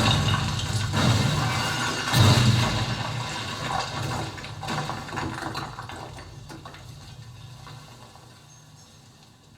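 Dreame S100 television's speakers playing a rushing noise over a low hum. It swells again about two seconds in, then gradually fades away.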